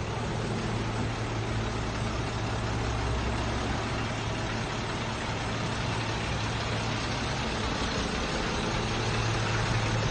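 Steady low vehicle engine hum with an even rushing noise.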